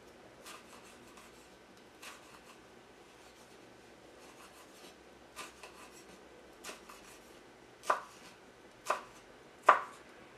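Chef's knife slicing a red bell pepper into strips on a wooden cutting board: single, unhurried cuts, each ending in a knock of the blade on the board. The cuts grow louder near the end, the last three the loudest.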